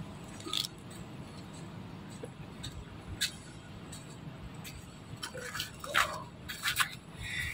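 A macaque chewing pineapple: a few sharp clicks and smacks, one about half a second in, one after about three seconds and several close together near the end, over a steady low outdoor hum.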